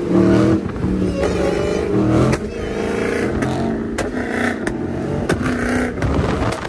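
Dodge Challenger's supercharged V8 under hard throttle, the engine note climbing and dropping several times, with a few sharp clicks or pops in the second half.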